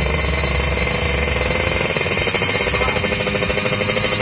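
Drag bike's two-stroke engine held at steady high revs while the bike stands still, with a rapid, even pulse.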